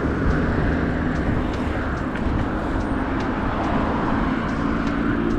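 Steady wind rush on the microphone and tyre noise from a mountain bike rolling along a city bike lane, with road traffic running alongside and a few faint clicks.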